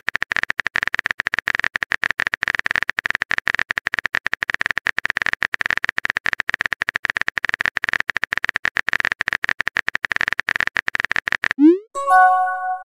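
Typing sound effect of a chat app: a long run of rapid, even clicks. Near the end it gives way to a short rising pop and chime as a new message appears.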